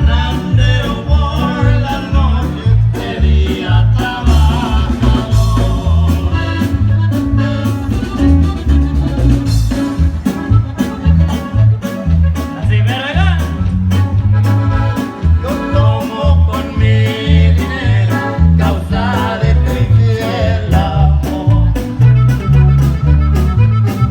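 Latin dance band music played loud, with a steady thumping bass beat and melody lines above it.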